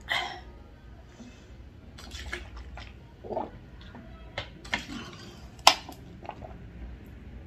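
A woman hiccuping while she eats: a few short hiccups a few seconds apart, mixed with small clicks and knocks, the loudest a sharp click about three quarters of the way through.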